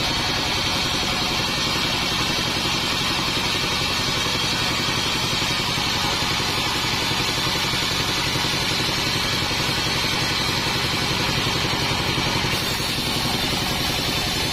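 Modified Bandsaw48 band sawmill running with a steady mechanical drone, a fast low pulsing and a steady high whine, with no letup.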